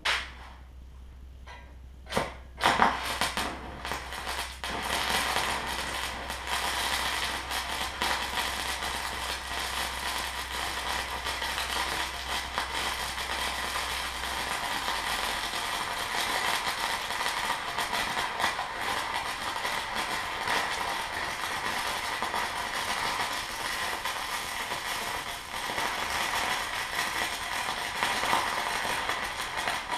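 Stick-welding arc from a DC inverter stick welder (Amico SF-200A) on 120 V: a few sharp strikes about two seconds in as the rod catches, then a steady crackle as the bead is run. The arc is running cold, with an old electrode whose flux is deteriorating.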